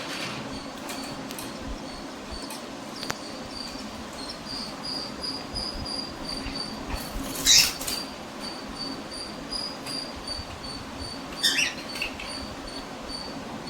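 Cockatiels giving two short, harsh, loud squawks during a squabble, one about halfway through and one near the end. Underneath, a high thin chirp repeats steadily about twice a second.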